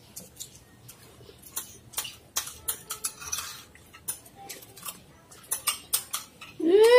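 Metal spoons clinking and scraping against ceramic bowls as two people eat, in light, irregular clicks. A person's voice starts near the end.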